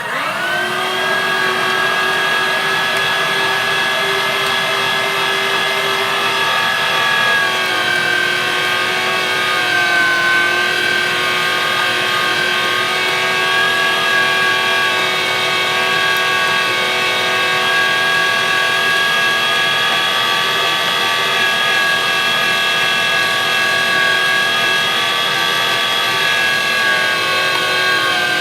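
Weston #12 electric meat grinder's 1 horsepower, 750 watt motor switching on and spinning up, then running steadily with a whine while grinding chilled venison; its pitch sags slightly now and then under the load of the meat.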